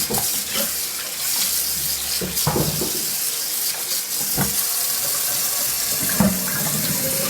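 Water running steadily from a tap into a sink, with a few brief knocks and clinks, about every two seconds.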